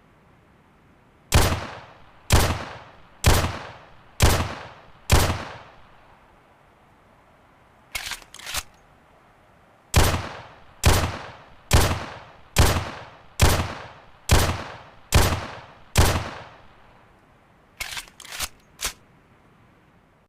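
11.4mm pistol firing: five single shots about a second apart, each with a short echoing tail, then two quieter clicks, then eight more shots slightly faster, and a quick cluster of quieter clicks near the end.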